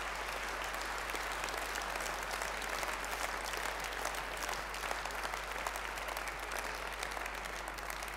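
Audience applauding: a dense, steady patter of many hands clapping that starts to thin out near the end.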